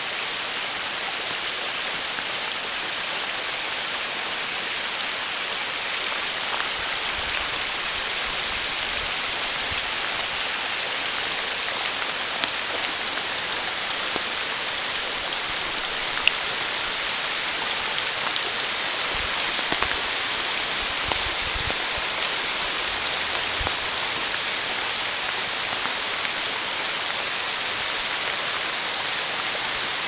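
Steady rain falling, an even hiss with a few sharp drop ticks.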